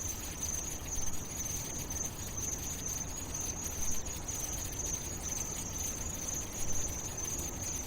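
Insects chirring in one unbroken high band, with a low rumble of background noise beneath.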